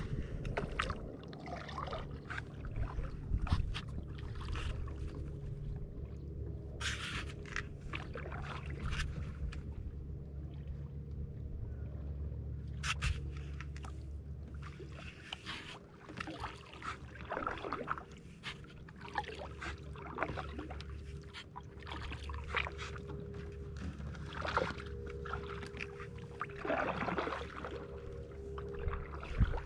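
Kayak paddle strokes: the blades dip and splash in calm water at an uneven pace, with water dribbling off them, over a low steady rumble.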